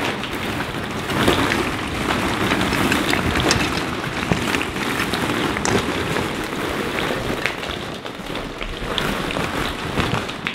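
Many hollow plastic ball-pit balls clattering and rattling against each other as children dig and thrash through them, a continuous dense patter of small clicks.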